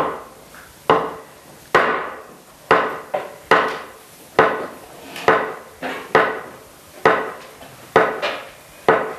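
Wooden sticks knocked together in a slow, even series, about one knock a second with a short ringing decay. The knocks are a listening exercise in which one strike is louder than the others.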